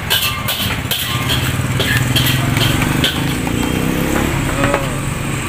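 A motor running with a steady low drone, with a quick run of sharp clicks in the first second and a half.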